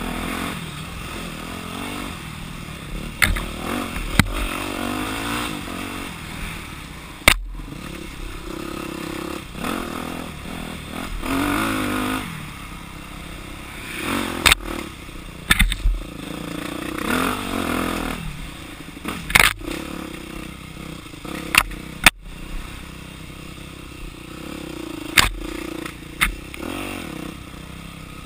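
Dirt bike engine being ridden on a rough trail, its note rising and falling with the throttle again and again. About ten sharp knocks and clatters are scattered through it.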